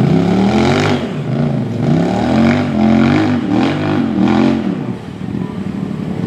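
UTV engine revving up and down about four times in quick succession, easing off near the end.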